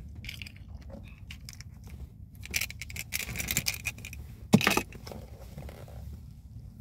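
Candy packaging being handled: rustling and crinkling of a foil-and-plastic wrapper, with scattered light clicks and one sharp click a little past halfway.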